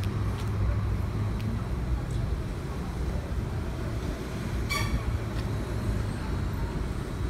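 City street traffic rumbling steadily, with a brief high-pitched squeak about five seconds in.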